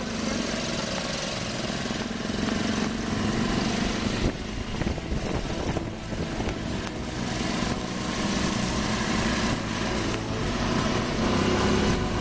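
Off-road buggy engine running steadily while driving.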